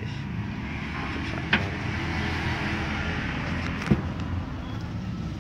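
A steady low drone of a running engine, with two short sharp clicks about one and a half and four seconds in.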